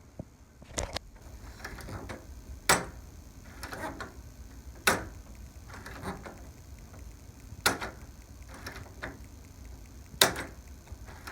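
Door knob turned and let go over and over, the latch clicking sharply five times, about every two and a half seconds, with a softer rattle of the knob between the clicks. The latch has just been given a few drops of penetrating lubricant and now works well, though the handle still hangs up.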